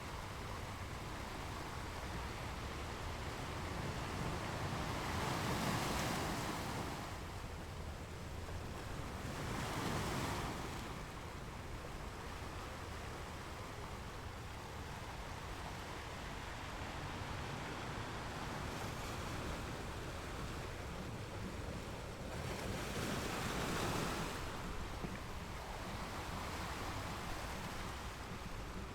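Ocean waves washing onto a beach over a steady low rumble of surf, with three larger waves swelling up and falling away, the last one past the middle.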